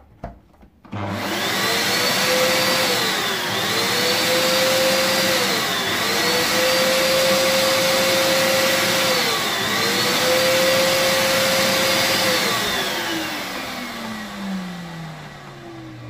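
Bosch Powermax 1700 W vacuum cleaner's freshly repaired motor switched on for a test run after reassembly. It spins up with a rising whine about a second in and runs steadily, its pitch dipping briefly and recovering three times. Near the end it is switched off and winds down with a long falling whine.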